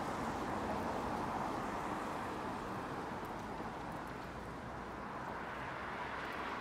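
Steady hiss of a rainy street, easing off slightly partway through.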